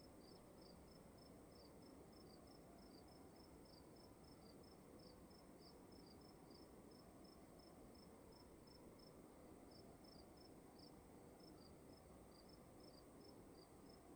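Faint cricket chirping, an even pulse of short chirps a few times a second with a brief gap about nine seconds in, over a steady high-pitched ringing and low room hiss.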